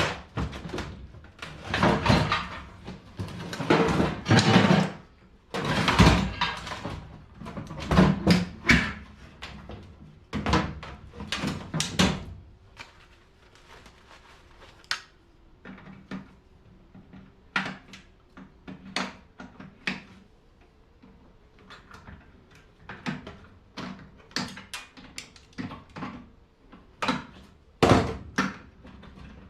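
Metal and plastic parts of a microwave oven knocking, clicking and rattling as it is taken apart with hand tools. The handling is busy for about the first twelve seconds, then thins to scattered single clicks.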